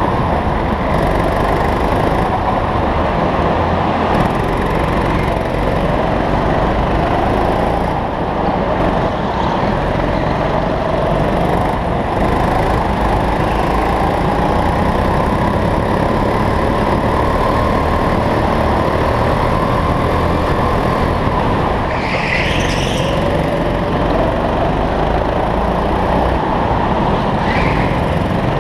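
Go-kart engine running hard on track, its pitch rising and falling with the throttle through the corners. About 22 seconds in comes a brief high-pitched squeal, and a shorter one near the end.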